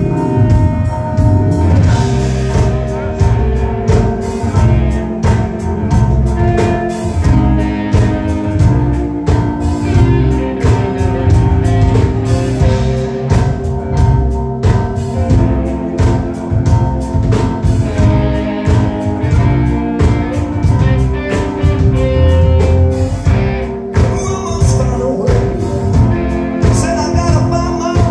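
Live rock band playing: electric guitar, held keyboard chords and a steady drum-kit beat, with a singer's voice.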